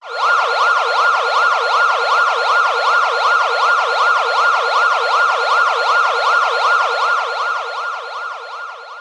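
A siren warbling fast, its pitch sweeping up and down about three times a second, then fading out over the last couple of seconds.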